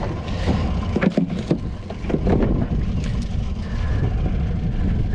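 Wind buffeting a wet action camera's microphone with a steady low rumble, while a crab pot is handled aboard a small boat: a few sharp knocks and rattles about a second in and again near the middle.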